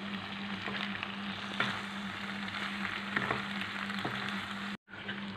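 Sauce-coated macaroni and vegetables sizzling in a hot kadhai while being stir-fried, with light scraping clicks of the spatula against the pan. A steady low hum runs underneath, and the sound cuts out for a moment near the end.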